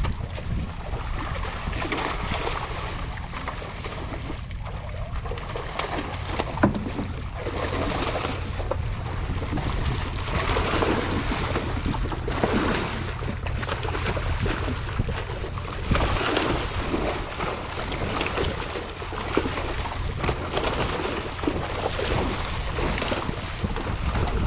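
Fish crowded in a drawn-up cage net thrash and splash at the surface while a dip net is worked among them: repeated irregular splashes over a steady low rumble.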